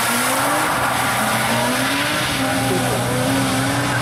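BMW E36 coupe's engine revving in several climbing sweeps, each dropping back, as the car drifts sideways, over a steady hiss of tyres on wet tarmac.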